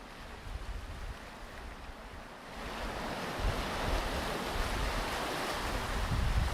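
Ocean waves washing onto a beach, a wave building into a louder surging wash about two and a half seconds in. Gusty wind rumbles on the microphone underneath.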